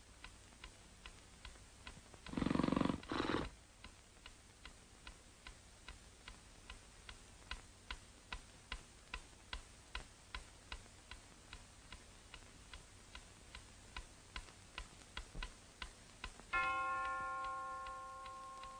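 Ornate mantel clock ticking steadily, about two and a half ticks a second, with a loud rasping snore about two seconds in. Near the end the clock's bell strikes once, striking the hour of one, and rings on, slowly fading.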